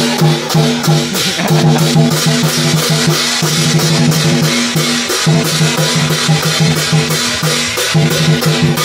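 Kèn tây funeral band playing: a drum kit keeps a fast, steady beat of bass and snare drum over held low pitched notes.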